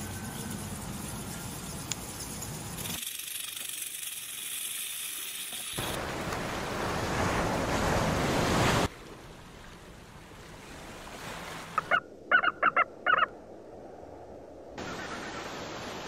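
Several short wildlife recordings cut together: steady background noise, a stretch of surf-like water noise, then a quick series of about six short honking calls.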